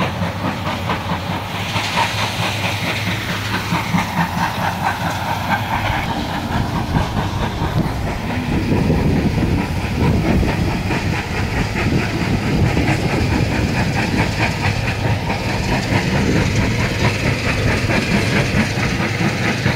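Heavy machinery at a stone-crushing yard running with a steady low rumble and a rhythmic clatter.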